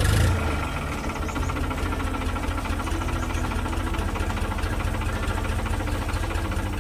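Combine harvester's engine running with a rapid, even pulse after a brief surge at the start.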